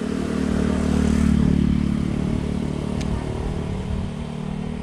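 A motor vehicle passing close by: its engine hum swells to its loudest about a second in, then fades. One sharp click about three seconds in.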